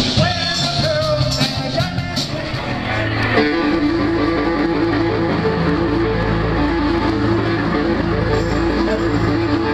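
Live rock band playing with electric guitars, bass and drums. From about three and a half seconds in, the band settles into a steady, repeating riff.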